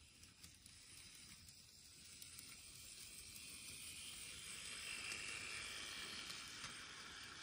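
N-gauge model of a Kotoden 1200 series two-car train, fitted with metal wheels and a motor, running along the track: a faint rolling rumble and motor hiss that grows louder as it approaches, loudest about five seconds in.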